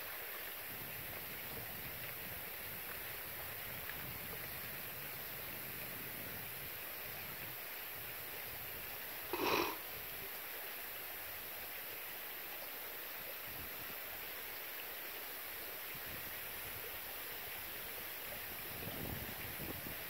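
Steady outdoor background hiss, with one short, sharp sound about halfway through.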